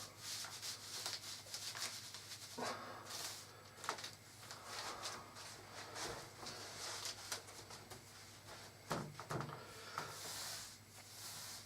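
Faint rustling and rubbing of a sheet of paper being slid and worked under an assembled cardboard jigsaw puzzle, in uneven patches, with a few light knocks around 4 and 9 seconds in.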